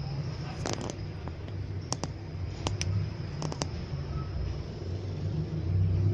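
Several short, light clicks and taps, mostly in pairs, from hands handling the LED TV set, over a steady low hum.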